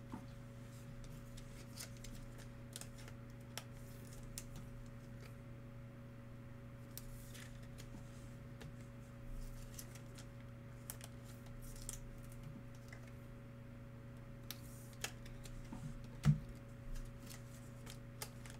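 Light clicks and crinkles of a trading-card box and its packs being opened and handled, with a louder knock near the end, over a steady low hum.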